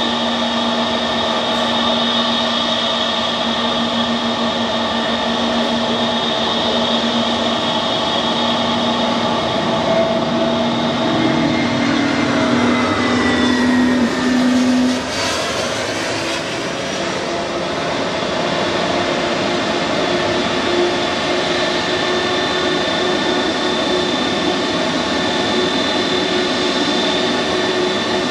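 Jet airliner engines running with a steady whine. The aircraft passes by about halfway through, its tones sliding down in pitch as it goes.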